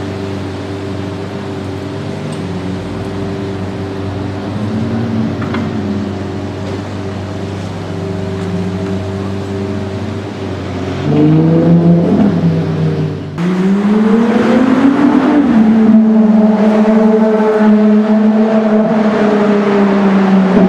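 Ferrari LaFerrari's 6.3-litre V12 running at low revs in traffic, then revving up in short rising pulls about 11 seconds in. After an abrupt break it rises again, louder, and holds a steady higher note, echoing in a road tunnel.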